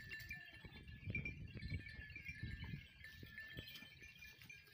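High, steady tinkling like small bells over a grazing goat herd, with scattered clicks and low rustling that grows louder about a second in and fades by the third second.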